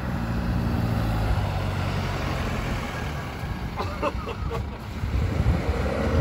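A Chevrolet Colorado pickup's engine running steadily as the truck drives past and pulls away, its hum fading after about three seconds. Faint shouting voices come about four seconds in.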